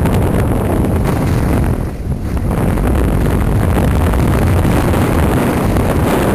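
Wind buffeting a camera microphone that is moving fast downhill on skis: a loud, steady, low rumbling rush that eases briefly about two seconds in.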